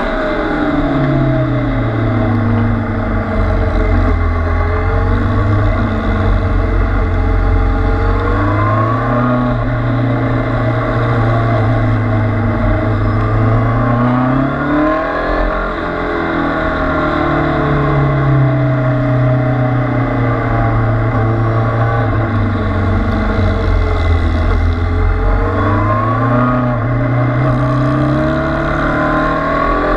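Kawasaki Z800 inline-four engine heard onboard while lapping a circuit, its note falling under braking and climbing again on the throttle out of the corners. The pitch drops near the start, rises about eight seconds in, dips and climbs again about halfway through, and climbs once more near the end.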